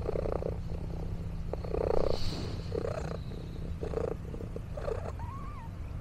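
Domestic cat purring, in pulses about once a second.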